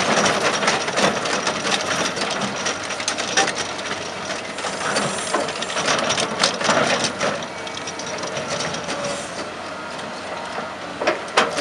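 Excavator-mounted hydraulic drum cutter grinding into a rock face: continuous mechanical grinding and crunching of stone, broken by many sharp cracks.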